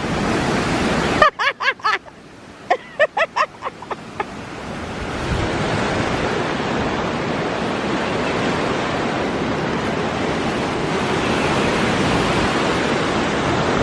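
Ocean surf, a steady rush of waves. In the first few seconds a string of short chirps sounds over it.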